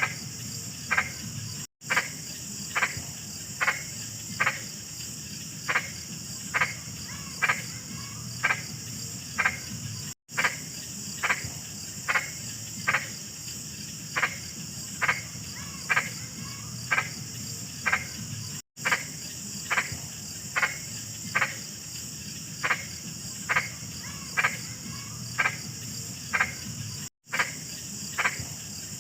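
A big frog croaking over and over in short, evenly spaced calls, slightly more than one a second, against a steady high insect trill. A split-second silent gap breaks in roughly every eight seconds.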